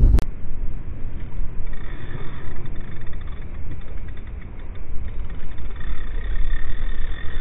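Low, steady rumble of wind buffeting the microphone over the rush of a fast-flowing river, with a faint high tone that comes and goes.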